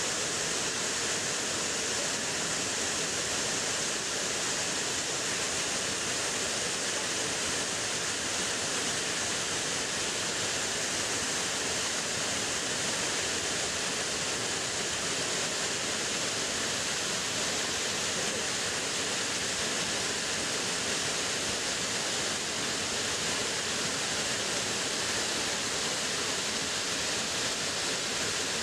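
A waterfall in heavy flow after the return of the rains: a steady, even rush of falling water.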